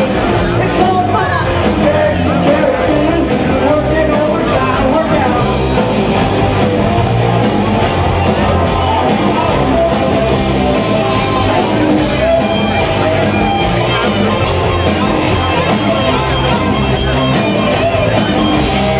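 Live rock band playing, with a singer's voice over a steady drumbeat.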